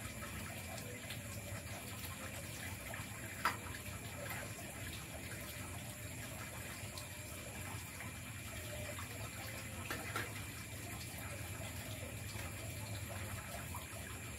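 A sharp metallic clink about three and a half seconds in and a fainter one near ten seconds, from a small stainless-steel kettle and cup being handled at a camp stove. Under them runs a steady, water-like hiss with faint high steady tones.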